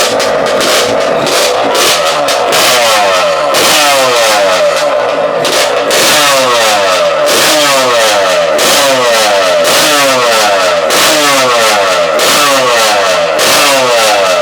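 Two-stroke motorcycle engine revved again and again, the revs falling away after each blip, about once a second, with a raspy, crackling exhaust.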